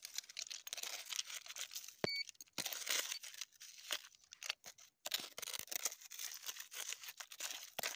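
Hand scraping and raking through loose gravel and stony soil, an irregular run of crunching and scratching with small clicks of stones. A short electronic beep sounds about two seconds in.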